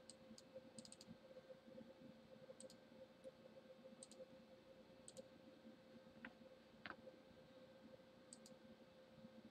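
Near silence with faint computer mouse clicks now and then: a few in quick succession about a second in, and two slightly louder clicks around six and seven seconds in, over a faint steady hum.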